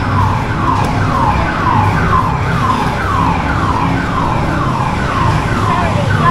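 A siren-like sound effect: a tone that falls in pitch, repeated over and over about twice a second, over a steady low hum.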